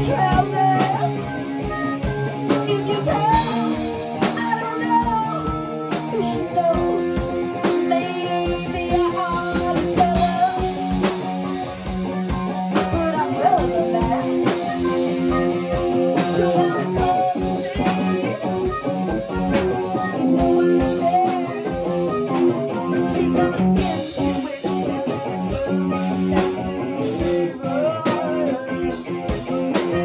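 A live blues-rock jam band playing, with guitar and a steady drum-kit beat, and harmonica and a woman singing over them.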